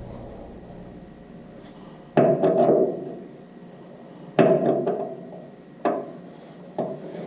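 Hammer striking a steel punch in a few sharp, ringing blows, driving out the fasteners that hold the old leaf-spring hanger to the truck frame.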